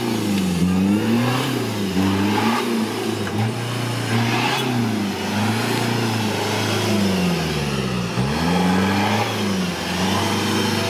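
Toyota Land Cruiser's engine revving hard and repeatedly as the 4x4 works through deep mud, its pitch rising and falling every second or so, with one deep drop about eight seconds in before it climbs again.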